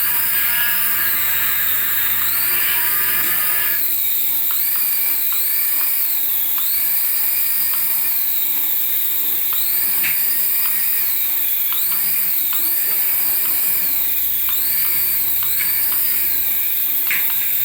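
Small electric motor of an RC toy whining at high pitch, speeding up and slowing down again and again as the throttle is worked. A rougher, buzzier layer under the whine stops about four seconds in.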